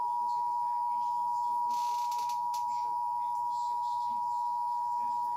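Emergency Alert System attention signal: a steady, unbroken two-tone alert tone held at one pitch.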